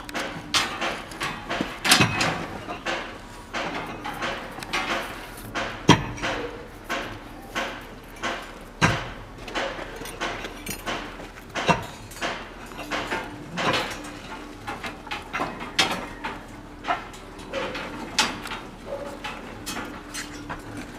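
Steel rebar being handled and tied at its crossings: irregular metallic clicks and knocks as the bars clink against one another, with a few sharper, louder knocks among them.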